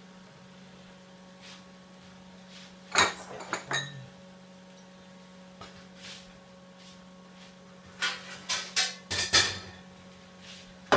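Kitchen cookware being handled: a few clattering metal knocks about three seconds in, then a quicker run of knocks and clinks around eight to nine seconds, over a steady low hum.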